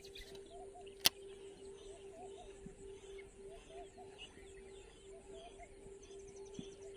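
Birds chirping over a steady, pulsing hum, with one sharp click about a second in.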